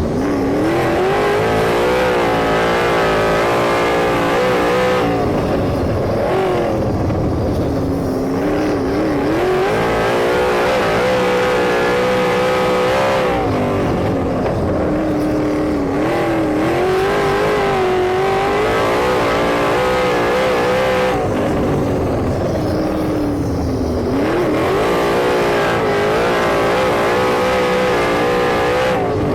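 Sprint car engine racing around an oval, its revs dropping into the turns and climbing again down the straights about every eight seconds, lap after lap.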